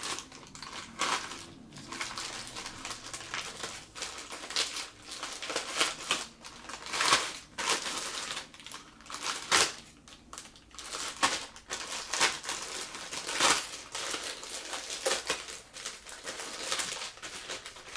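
Packaging crinkling and rustling as a parcel is opened by hand, in irregular bursts with a few sharp clicks.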